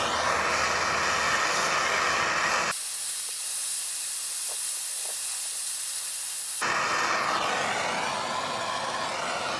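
Handheld gas torch burning, a steady hiss of its flame played on an old rubber lower-control-arm bushing to burn the rubber out. About three seconds in the hiss thins to a higher, lighter sound, and it fills out again near seven seconds in.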